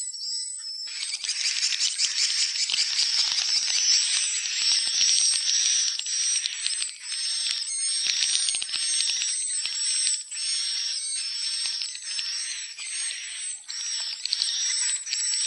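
A dense chorus of swiftlet calls: rapid, buzzy twittering and clicking chatter, with short high arched notes repeating over it.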